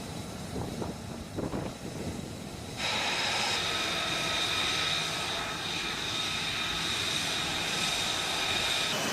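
Jet engine noise: a quieter stretch with some low rumble, then about three seconds in an abrupt change to a louder, steady rush with a high, even turbine whine.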